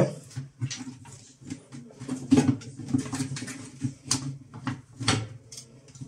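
Irregular plastic and metal clicks and knocks as a front-loading washing machine's door assembly, the glass bowl in its plastic frame, is handled and pressed into position, with a steady low hum underneath.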